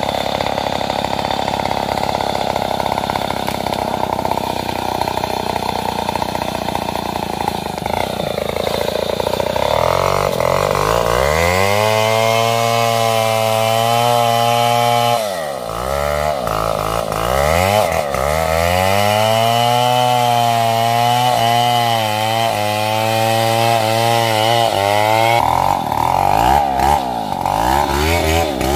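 Stihl MS070, a large two-stroke chainsaw, running loud. For the first ten seconds it has a dense, rough sound, as when cutting through wood under load. From about ten seconds in it revs up freely and holds high speed, with a brief drop in revs near the middle and fluttering throttle later, before the dense rough sound returns near the end.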